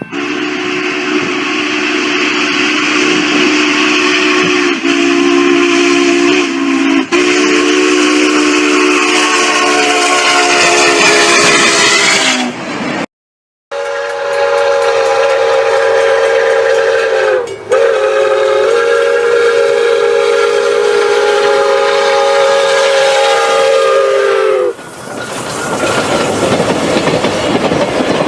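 Two long steam train whistles, each a chord of several notes sounding together. The first is lower and sags in pitch as it dies away. After a short break, a higher whistle holds steady apart from one brief dip partway through. A few seconds before the end it gives way to a steady noisy rush.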